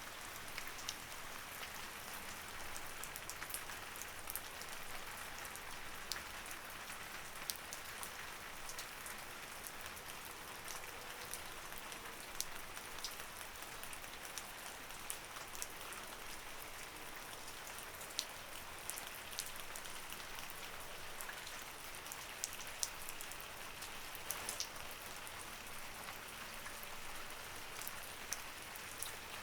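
Light rain falling steadily, a soft even hiss with scattered individual drops ticking sharply on a surface.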